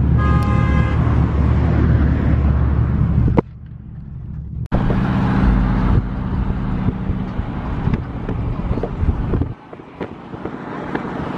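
Steady low engine and road rumble of a car driving on a freeway, heard from inside the cabin through an open side window. It breaks off abruptly about three and a half seconds in and again near nine and a half seconds. A brief pitched tone sounds at the very start.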